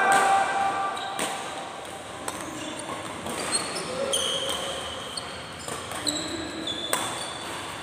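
Badminton court sounds in a large echoing hall: many short high squeaks of sports shoes on the court floor and a few sharp racket hits of shuttlecocks, with a loud call from a player right at the start and voices in the background.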